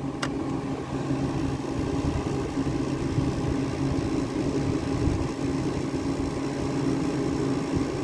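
Vintage Fedders Room-Air window air conditioner running: a steady hum from its Rotorex rotary compressor under the rush of the fan. There is a single light click from the sliding control door just after the start.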